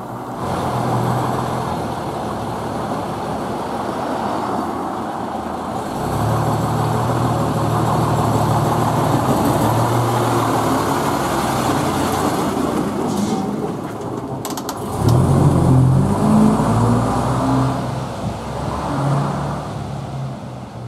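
Engine of a 1952 Bristol KSW double-decker bus running as the bus drives, with its note shifting through gear changes. It is loudest and rising in pitch about 15 seconds in, as it accelerates, after a few short sharp clicks.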